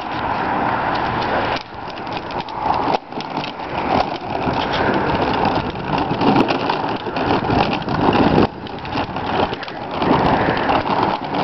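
Small powered ride-on toy tractor driving over pavement: a steady rattling rumble of its plastic wheels and drive. It drops off briefly twice, near two seconds in and again past eight seconds.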